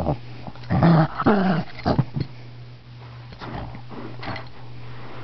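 Shih tzu growling in a series of short, pitch-bending bursts, loudest about a second in and fainter later: an irritated protest at being touched while napping.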